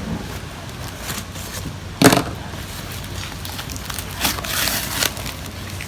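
Packaging wrap being handled and pulled open: crinkling rustle, with a sharp loud crackle about two seconds in and a longer rustle near the end.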